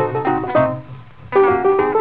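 Background music: an instrumental break in a country song, a melody of short notes with a brief lull about a second in.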